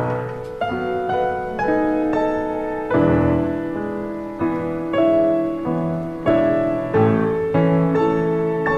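Background music: a gentle solo piano piece, notes struck about once a second and left to ring.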